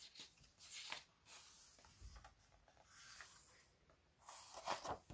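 Pages of a hardcover picture book being opened and handled: several soft paper rustles and slides, the loudest near the end.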